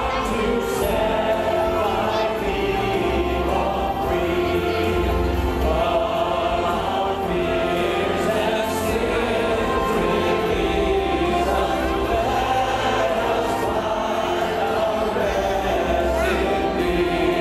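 Choir singing with instrumental accompaniment, over low bass notes each held for a second or two.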